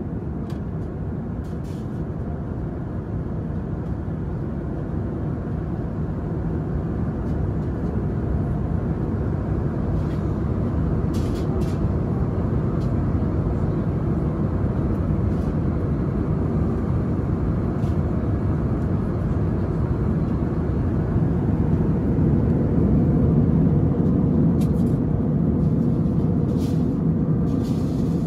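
Steady roar of an Airbus airliner's engines and airflow heard from inside the passenger cabin, slowly growing a little louder, with a few faint clicks.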